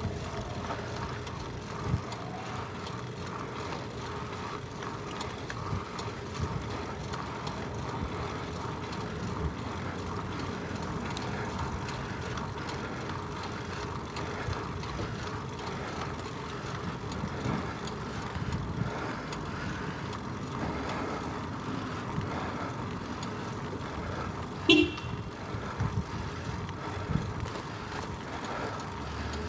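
Steady rush of wind and road noise from a bicycle ride, with small knocks from bumps along the way. About 25 seconds in comes one short, high toot.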